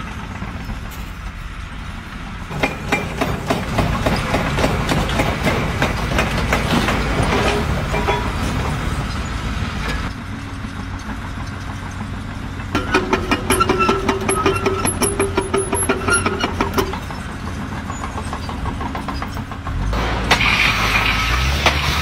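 An engine running, swelling and easing in loudness, with a steady higher tone for a few seconds past the middle.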